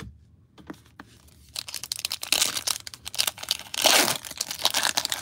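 A Donruss Optic football card pack's plastic wrapper torn open and crinkled by hand. The crackling starts about a second and a half in and is loudest near four seconds.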